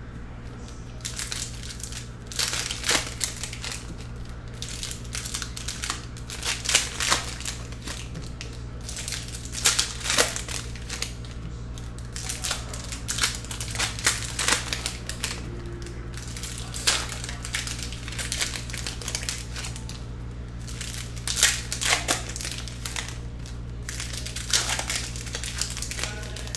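Foil trading-card pack wrappers crinkling and crackling in repeated short bursts every couple of seconds as packs are opened and the cards handled, over a steady low hum.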